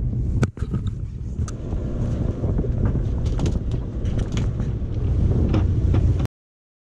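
Wind buffeting the microphone on the open deck of a boat at sea, a steady low rumble with scattered light clicks and knocks. A brief dip comes about half a second in, and the sound cuts off abruptly near the end.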